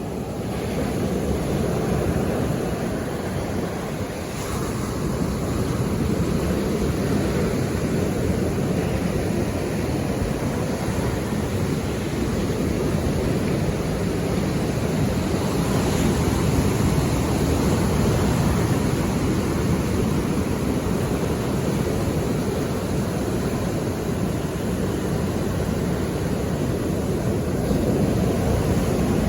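Sea waves washing onto the shore: a steady rushing with slow swells in loudness, heaviest in the low end, with wind on the microphone.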